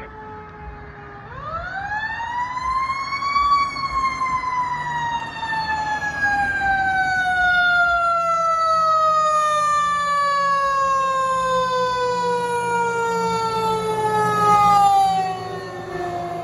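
A fire engine's mechanical Q siren spins up about a second in and then winds slowly down in one long falling wail. The truck's engine rumbles underneath, growing louder as it approaches and passes close near the end.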